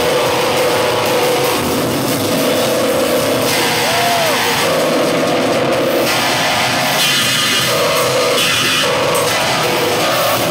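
A live band playing loud rock music on guitars, keyboards and drums, heard from within the audience of a concert hall. The level stays steady and loud throughout.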